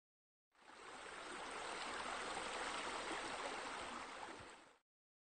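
Steady flowing water, fading in about half a second in and fading out near the end.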